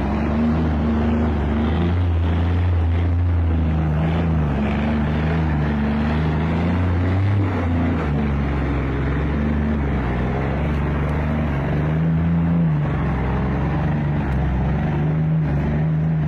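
Heavy logging truck's diesel engine labouring under load, a steady drone whose pitch drifts slightly up and down.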